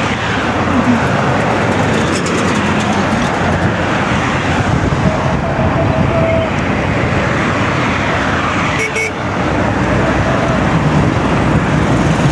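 Steady road traffic noise from cars and a motorcycle driving past.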